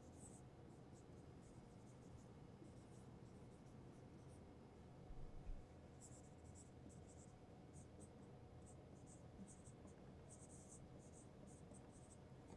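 Marker writing on a whiteboard: faint, short scratchy strokes in quick runs, with pauses between words. A soft low bump about five seconds in.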